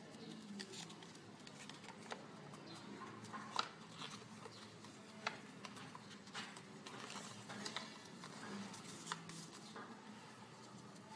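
Sheet of paper being folded by hand: soft rustles and crinkles with scattered sharp ticks as creases are pressed, the clearest about three and a half and five seconds in, over a faint low hum.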